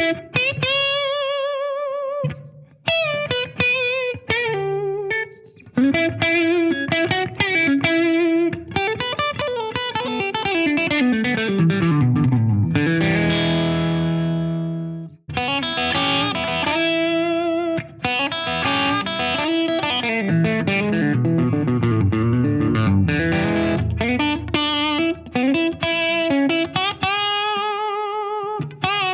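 Distorted electric guitar, a 2019 Gibson SG Standard on its middle position with both pickups on and the knobs on full, played lead style with held notes shaken by vibrato. A fast descending run leads into a held ringing chord that stops suddenly about halfway through, and then more lead lines follow.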